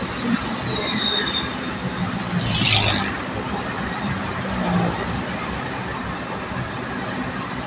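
Steady road and engine noise heard from inside a moving vehicle on an expressway, with a brief hiss about three seconds in.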